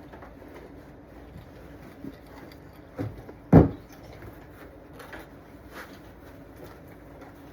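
Faint knocks and rustles of the animatronic's parts being handled, with two thumps about half a second apart about three seconds in, the second much the louder.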